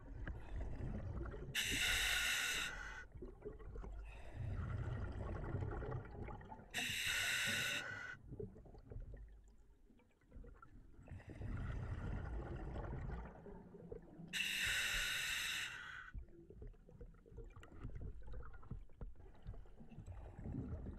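Scuba diver breathing through an Apeks open-circuit regulator in an OTS Guardian full face mask. Three short hissing breaths in through the demand valve come about every six seconds, each followed by a longer, lower rumble of breath and bubbles going out.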